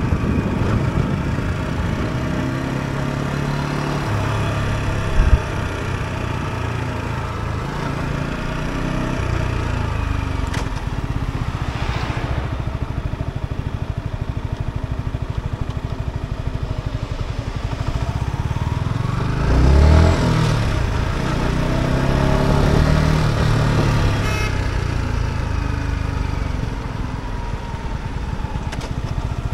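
Yamaha R125's single-cylinder four-stroke engine running while riding in city traffic, its pitch rising and falling with the throttle. There is a brief low thump about five seconds in, and vehicles pass close by, the loudest about twenty seconds in.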